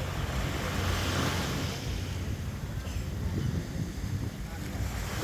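Beach ambience: small waves washing onto the sand, one surging in about a second in, with wind buffeting the microphone and distant voices of people in the sea.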